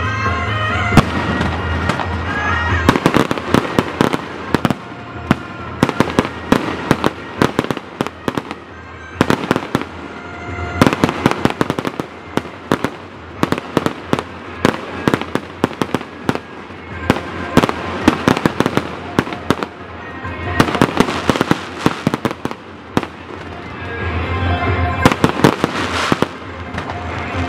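Fireworks going off in dense volleys of sharp bangs and crackles, with music playing underneath. The bursts thin out briefly around 9–10 s and 20 s, then build again.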